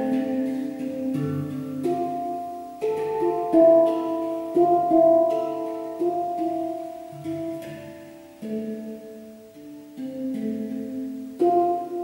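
Handpan played with the hands: a slow melody of struck, ringing notes, a new note about once a second, each sustaining and fading as the next overlaps it.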